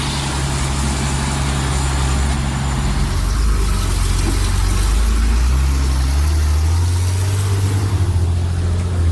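DAC 665T heavy truck's diesel engine running under load, its low note shifting in pitch a few times as the engine speed changes.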